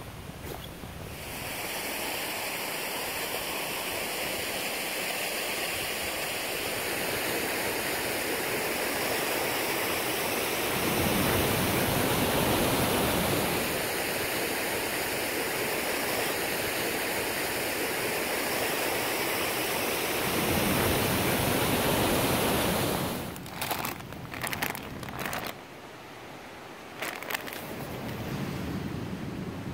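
Ocean surf washing and breaking on a rocky beach, a steady rush that swells louder twice as bigger waves break. Near the end the surf falls back and a few scuffs and knocks on rock are heard.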